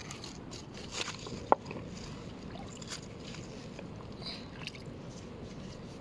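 Shallow river water lapping and sloshing softly as a wooden board and a hand are dipped at the water's edge, over a steady low background. One sharp knock comes about one and a half seconds in, with a few small clicks around it.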